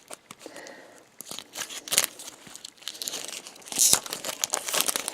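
Plastic blind-bag packets and wrapping crinkling and rustling as they are handled while a Shopkins toy canister is unpacked. The sound comes in irregular bursts with a few sharp clicks and is loudest about four seconds in.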